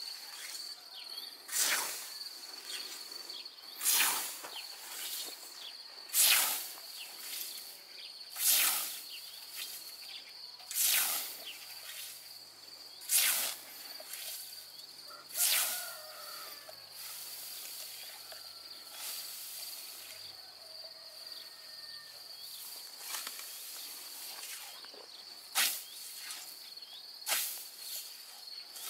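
Hand scythe swishing through tall meadow grass, one stroke about every two seconds. The strokes thin out and grow fainter in the middle, then two more come near the end.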